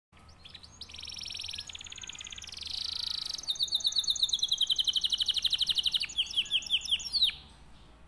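Domestic canary in strong breeding condition singing. Its song runs from rapid trills into a fast series of repeated downward-sweeping notes, which slow into a few separate sweeps and stop abruptly about seven seconds in.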